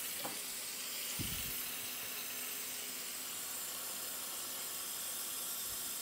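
Kitchen tap running steadily into a sink, turned off just at the end, with a couple of faint knocks early on.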